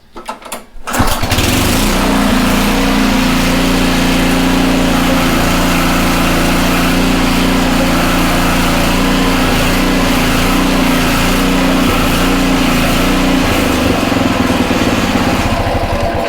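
Honda HRC216 commercial lawn mower engine pull-started: a short rattle of the recoil pull, then the engine catches about a second in and runs steadily with the blades disengaged.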